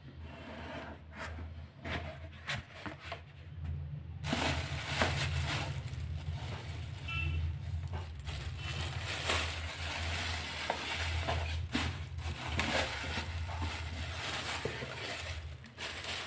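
A cardboard shoebox being handled, with a few light knocks as its lid comes off, then a thin plastic bag crinkling and rustling from about four seconds in as a shoe is pulled out and unwrapped.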